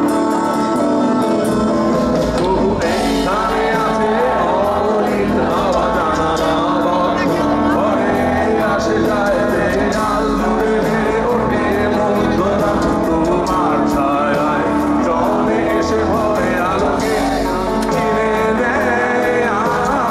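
A live rock band playing: a man sings lead over electric guitar, bass and drums, his voice coming in about three seconds in.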